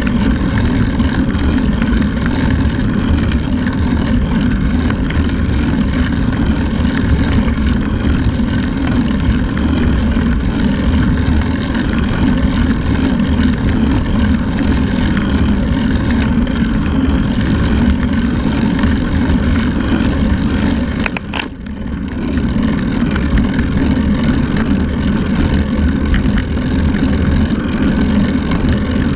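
Wind buffeting the microphone of a handlebar-mounted camera on a moving road bike: a loud, steady, low rumble with no words. It drops away briefly about three-quarters of the way through.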